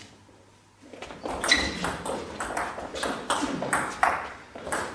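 Table tennis rally: the plastic ball clicking sharply off the rubber bats and the table in quick alternation, a few hits a second, starting about a second in after a short hush.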